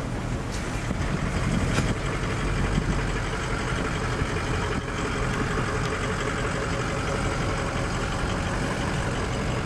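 Truck engine running steadily at low revs.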